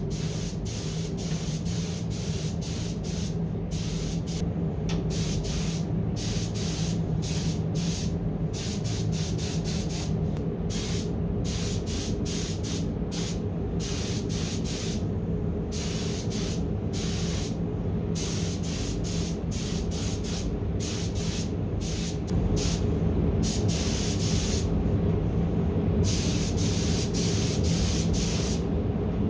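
Paint spray gun applying base coat: its air hiss starts and stops in many short passes as the trigger is pulled and released, louder from about two thirds of the way in. Under it runs the steady hum of the spray booth's heating.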